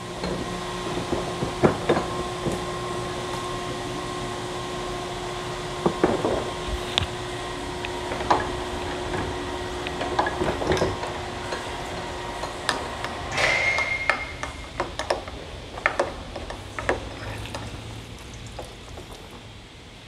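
Scattered knocks and clinks of a diesel fuel filter being taken apart and handled over a drain pan, with a steady hum underneath that stops about two-thirds of the way through, and a brief high tone at about the same point.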